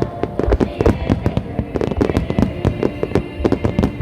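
Dense barrage of fireworks bursts, many bangs a second, with music playing underneath.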